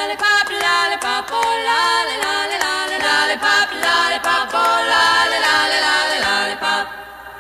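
Background music: a voice singing a melody, fading near the end.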